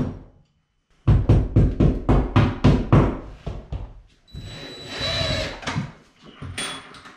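A hammer taps wall anchors into drywall in a quick run of knocks, about four a second. About four seconds in, a cordless drill runs for roughly two seconds, boring into the drywall.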